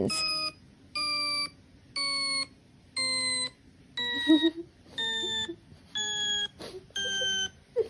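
A sequence of electronic beeps played as a sound for a dog to react to, about one a second, each about half a second long, with the pitch shifting a little from beep to beep. Short faint squeaks come between some of the beeps in the second half.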